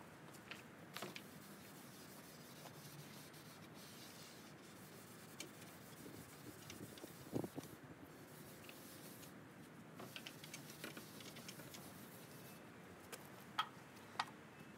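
Faint rubbing of a pad over an oil-wet teak tabletop as Danish oil is worked in, with scattered light clicks and two sharp clicks near the end.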